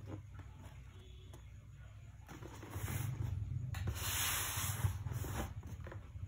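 Hands rubbing and sliding over a cardboard shoebox as it is handled and turned, a dry scraping rustle that builds about two and a half seconds in, is loudest a little past the middle, and fades out.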